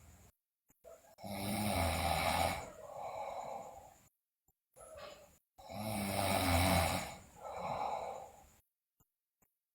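A sleeping girl snoring loudly, twice. Each time a long snore is followed by a shorter, weaker one, with silent pauses between the breaths.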